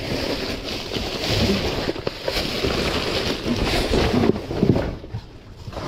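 Plastic bags and plastic-wrapped meat packages rustling and crinkling as gloved hands dig through them, dying down near the end.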